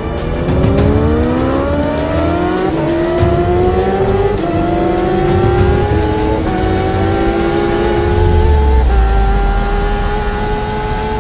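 Kawasaki H2R's supercharged inline-four under full-throttle acceleration at very high speed. Its pitch climbs, drops back at each of four upshifts and climbs again more slowly each time, over heavy low wind rumble.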